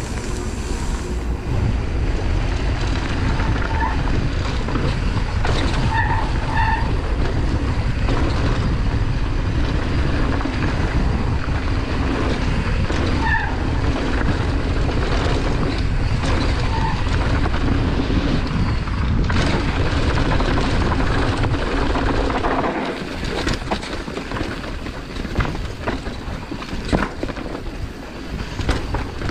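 A downhill mountain bike ridden fast down a gravel and dirt trail, recorded on a GoPro Hero 9: steady wind rush on the microphone over tyre rumble and rattle from the ground, with a few brief squeaks. About three-quarters of the way through, the wind rush drops and the ride turns rougher, with more knocks and clatter over rocks.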